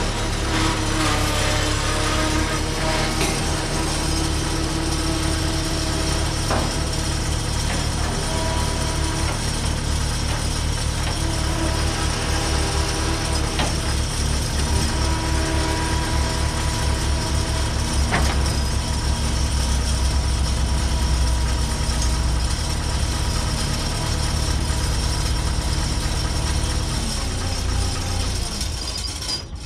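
Case 1845 skid steer's diesel engine running steadily under load while its loader lifts a car body on a chain, with a few sharp metallic clanks. The engine winds down and stops near the end.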